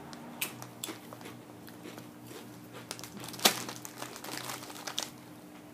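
Crunching and chewing kettle-cooked potato chips: scattered sharp crunches, the loudest about three and a half seconds in.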